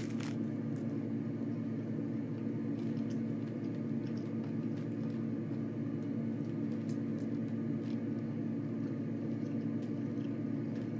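A steady hum with several held tones at an even level, from a running machine or appliance, with a few faint clicks of chewing.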